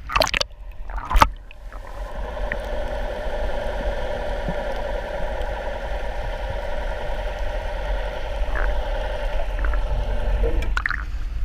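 Water splashing twice as the camera plunges under, then a muffled underwater drone: a boat engine's steady hum carried through the water, with a low rumble beneath it. A splash near the end as the camera breaks the surface.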